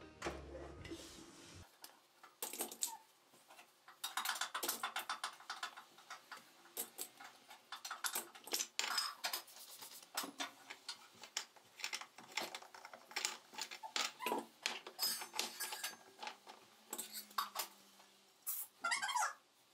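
Microfiber cloth rubbing over ceramic canisters and the countertop, with quick irregular light clicks and knocks as the jars are handled and set down while dusting.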